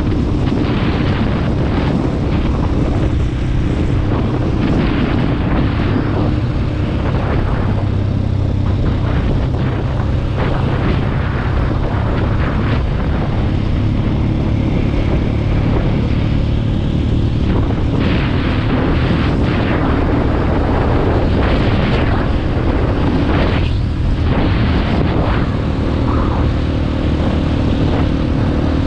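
A KTM 450 EXC-F's single-cylinder four-stroke engine running steadily under way, its note shifting with throttle, with wind rushing over the microphone.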